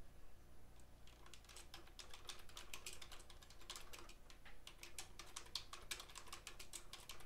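Typing on a computer keyboard: a run of quick, irregular keystrokes, faint, starting about half a second in.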